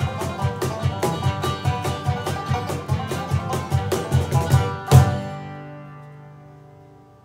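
Bluegrass band of banjo, fiddle, acoustic guitars and cajon playing an up-tempo tune with a steady driving beat, then ending on one loud final accent about five seconds in. The last chord rings and fades away.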